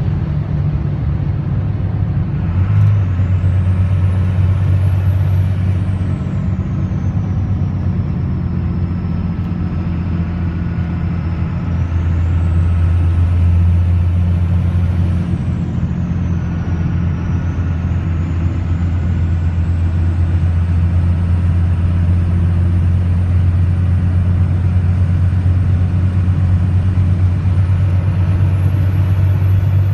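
Turbocharger whistle from a 1999 Dodge's 5.9-litre 24-valve Cummins turbo diesel, breathing through a BHAF open intake filter, over the engine's low drone as the truck drives. The whistle glides up steeply to a very high pitch about three seconds in and again about thirteen seconds in, dropping back after each. It then holds high and climbs once more near the end.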